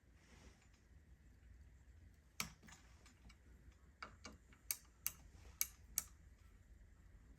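Seven or so sharp, irregular clicks a fraction of a second to a second and a half apart: hand tools working on the bicycle's stem and handlebar bolts.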